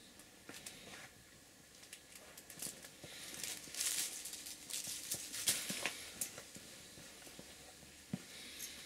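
Faint handling noise of a hand-held camera: rustling and scattered light clicks, busiest in the middle.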